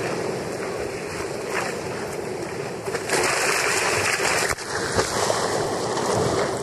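Rough sea rushing and breaking around a sea kayak's bow, mixed with wind on the microphone. The water noise grows louder about three seconds in as a breaking wave hits the bow, with a sharp knock and a brief dip a moment later.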